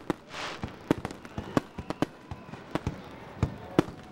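Aerial fireworks shells bursting in quick, irregular succession: a rapid string of sharp bangs, with a brief hiss about half a second in.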